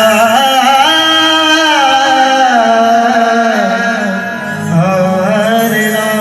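Male singer drawing out a long, wavering melisma on a held vowel in a Marathi shahiri gan, an invocation to Ganesha, over instrumental accompaniment. The voice dips briefly about two-thirds of the way through, then picks up again.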